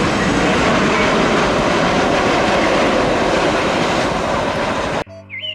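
Boeing 737-800 airliner's jet engines, a steady loud roar at takeoff thrust as the plane rotates off the runway. About five seconds in it cuts off suddenly into light music with chirping sounds.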